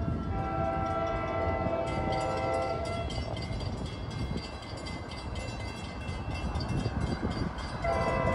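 NJ Transit train's horn sounding a multi-note chord that stops about three seconds in and sounds again near the end, over the steady rumble of the passing train. From about two seconds in, the wheels click rapidly over the rails.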